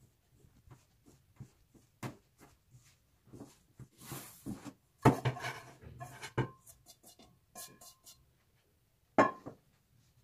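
Kitchen handling sounds: scattered light taps and knocks of utensils and dishes. A short hiss comes about four seconds in, sharper knocks and clinks follow about a second later, and another knock comes near the end.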